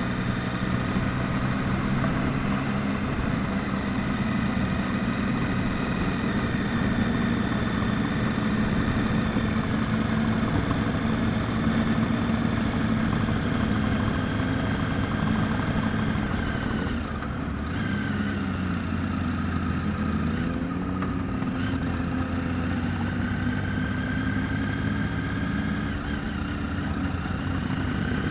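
Motorcycle engine running at a steady road speed on the rider's own bike; about two-thirds of the way through its note drops and rises again a few times as the bike eases off and picks up through the bends.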